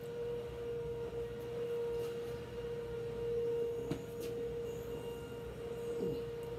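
A steady hum at one unchanging pitch, with a faint click about four seconds in.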